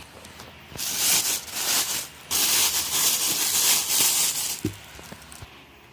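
Packaging rustling and crinkling as hardware is pulled out of the motor kit box, in two long stretches, followed by a couple of light knocks near the end.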